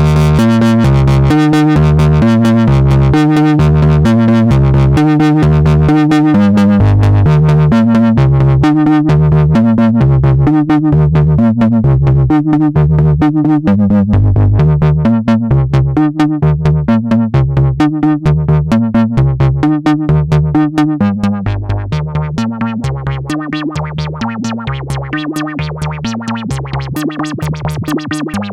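Behringer Octave Cat analog synthesizer playing a fast sequenced bass line of short stepped notes with busier high notes over it, driven by an SH-101 sequencer. It gets somewhat quieter about three quarters of the way through.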